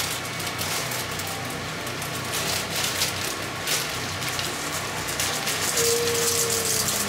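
Plastic bag of dry alphabet macaroni crinkling as it is opened and handled, then the dry pasta pouring out of it into a pan near the end.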